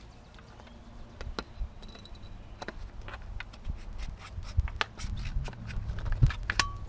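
Gear being handled in a car trunk: scattered clicks, rattles and knocks as items are picked up and moved, with a couple of dull thumps about four and a half and six seconds in.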